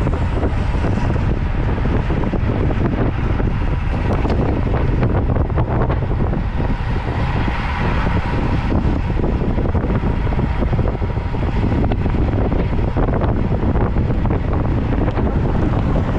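Steady wind buffeting on the microphone of a camera riding along on a road bicycle at speed, a loud, even rush strongest in the low end.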